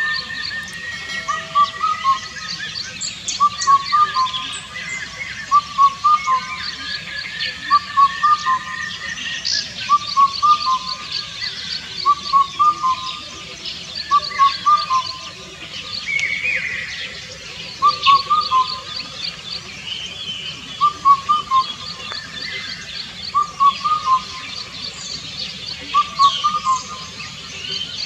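Indian cuckoo (Cuculus micropterus) repeating its four-note call, the 'bắt cô trói cột' phrase with the fourth note lowest, about every two seconds. Another bird's fast, high ticking trill runs behind it.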